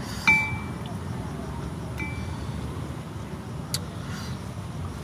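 Clinks against a small glass sauce bowl: a sharp tap that rings briefly about a third of a second in, and a fainter ringing clink at two seconds, over a steady low background rumble, with a small click near the end.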